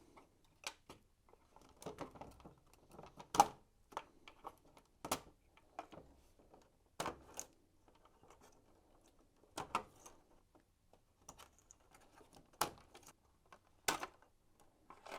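Scattered sharp clicks with light rustling and rattling between them, as push-on electrical connectors are pulled off the terminals on the back of a Hoover tumble dryer control panel and the wires handled. There is a click every two seconds or so.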